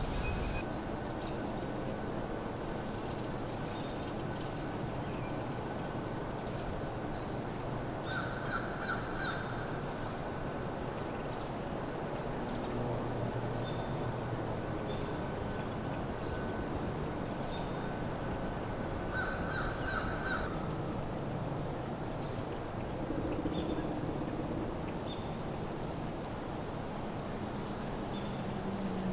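A crow cawing in two short runs of quick caws, about eleven seconds apart, with faint high chirps scattered in between.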